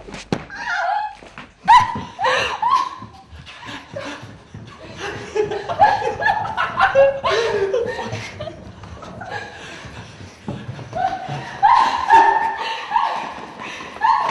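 People laughing hard, in bursts and snickers, with some words mixed in.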